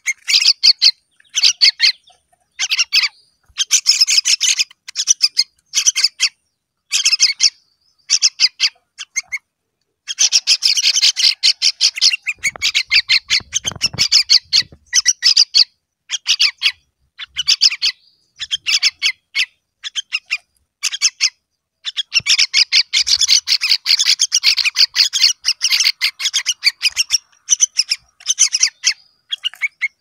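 Two hand-reared fledgling songbirds giving begging calls, gaping for food: high, rapid chattering calls in bouts from a fraction of a second to several seconds long, with short pauses between, the longest bouts about a third and two thirds of the way in.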